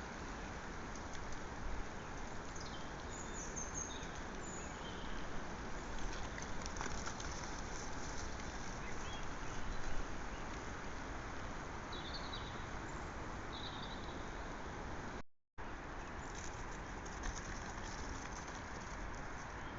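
Steady outdoor hiss picked up by a trail camera's microphone, with a few faint, short bird chirps. The sound cuts out completely for a moment about fifteen seconds in.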